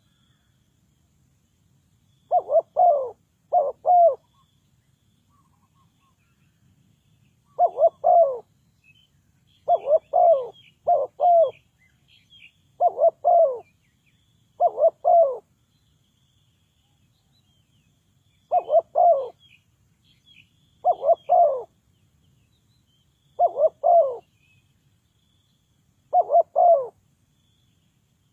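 Spotted dove cooing: short phrases of low, rounded coos repeated every few seconds, with faint high chirps of small birds in the background.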